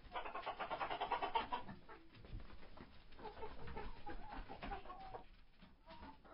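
Chickens clucking in a hen house: a fast, dense run of clucks for the first two seconds, then a slower string of short clucking calls that tails off about five seconds in.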